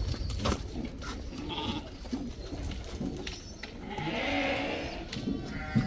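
Flock of black-headed sheep bleating as they mill about a pen, with a louder bleat about four seconds in.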